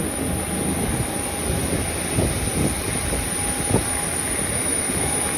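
Steady jet aircraft noise: a constant high whine and a fainter steady tone over a low rumble, with a few short knocks.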